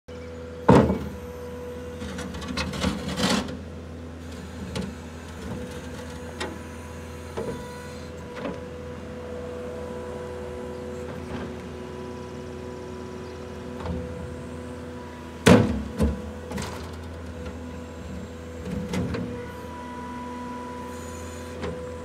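New Holland L220 skid steer's diesel engine running steadily while the loader arms lift and lower the bucket, with sharp knocks now and then, the loudest about a second in and again around the middle.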